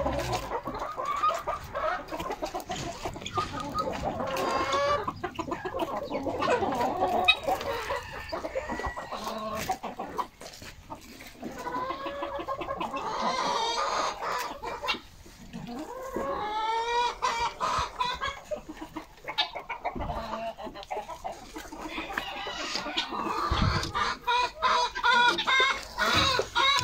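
A flock of domestic chickens clucking and calling without a break, with short sharp clicks scattered among the calls.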